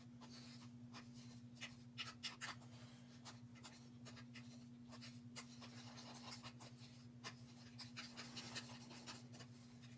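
Wooden craft stick scraping and tapping as acrylic paint is mixed with Floetrol: faint, irregular light clicks and scrapes over a steady low hum.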